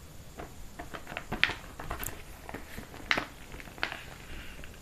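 Paper sheets of an instruction manual rustling and crackling as they are handled and shifted in the hands: a few short, scattered crackles, the sharpest about a second and a half and three seconds in.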